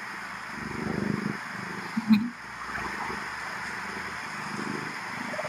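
Raccoon mother growling low in rough spells over a steady hiss, with a short knock about two seconds in.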